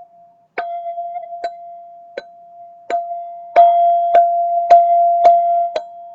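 Black ZenTube, a single-pitched metal sound-healing instrument, struck over and over so its one bell-like tone keeps ringing. The strikes come faster and louder about halfway through.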